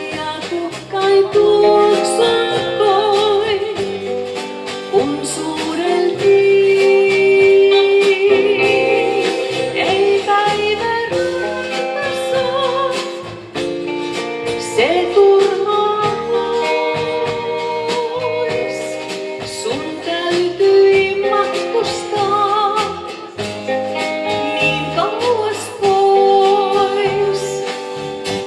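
Live band playing an instrumental break between verses: a lead melody of held notes with vibrato over a stepping bass line and drums.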